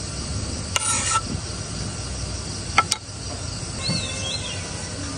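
Sliced mushrooms scraped off a wooden cutting board into a pot on a portable gas stove, a brief rustle about a second in, over a steady high hiss. A sharp click near three seconds, then a few short, high chirps about four seconds in.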